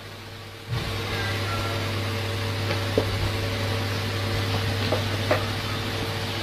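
A steady low machine hum that comes in about a second in, with a few faint light taps.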